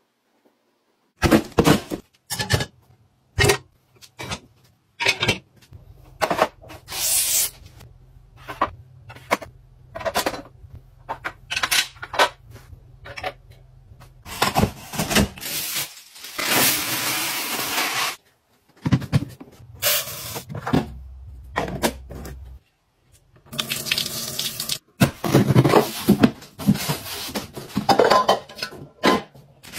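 Kitchenware and household gadgets being handled: a string of separate clicks, knocks and clatters, with a few longer hissing stretches.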